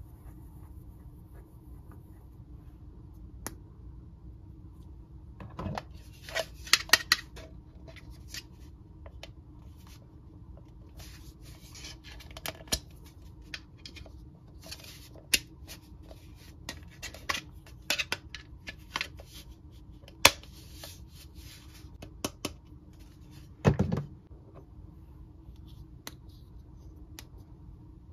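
Hard plastic Mr. Potato Head toy parts handled on a table: scattered clicks, light clatter and rustles as pieces are picked up and pressed into the potato body, with two duller knocks, about six seconds in and again near the end.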